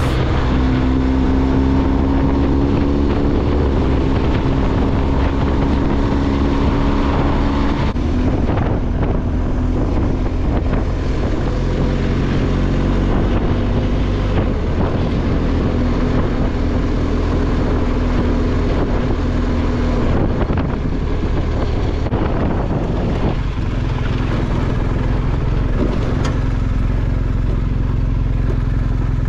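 BMW R1250GS boxer-twin motorcycle engine running under way, with wind noise on the microphone. The engine note holds steady and shifts in pitch about eight seconds in and again about twenty seconds in.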